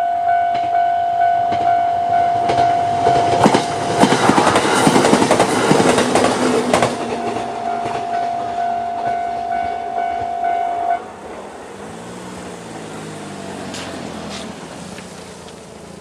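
Japanese level-crossing electronic warning bell ringing in a steady pulsing ding, a little under two a second. About 3.5 s in, an E131 series electric train passes, its wheels clattering over the rail joints for about three seconds. The bell keeps ringing and cuts off about 11 s in, and near the end a road vehicle's engine is heard rising and falling.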